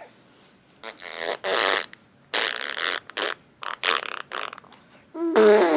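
A young child making fart noises: three raspberry-like splutters of about a second each, then a louder, longer one with a wobbling pitch starting near the end.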